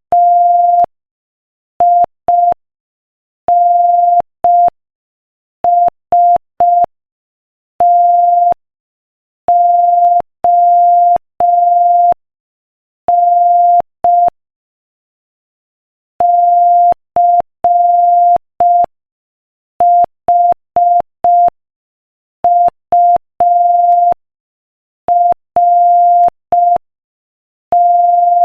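Morse code at 5 words per minute: a single steady mid-pitched beep keyed on and off in short and long tones (dots and dashes), with silent gaps between letters and a longer gap between words. Each tone starts and stops with a faint click.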